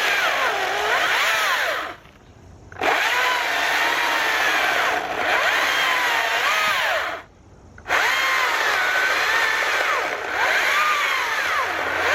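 STIHL battery-powered chainsaw with a 16-inch bar cutting through a log, its electric motor whine sagging and rising in pitch as the chain bites in. It cuts out twice for under a second and starts again, stopping when pushed too hard, which the owner guesses is the motor lacking power.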